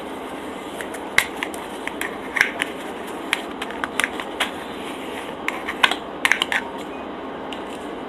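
Metal spoon scraping and clicking against a small plastic sauce cup while scooping out sauce: a run of sharp, irregular clicks starting about a second in, over a steady hiss.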